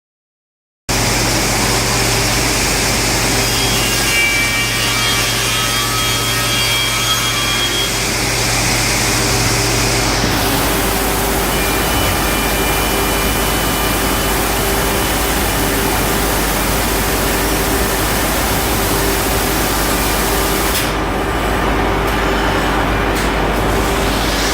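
CNC router machining wooden stair treads: a steady cutting noise over a constant machine hum, starting about a second in after dead silence. The higher part of the noise drops away about ten seconds in.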